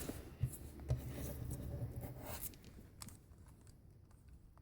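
Handling of a plastic speed cube and its packaging: a couple of light knocks and rustling for the first couple of seconds, then only faint clicks.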